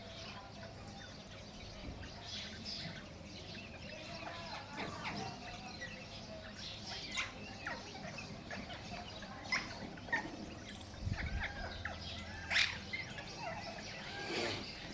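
Indian ringneck parakeet chirping and whistling in a string of short calls, with a few louder, sharp calls in the second half.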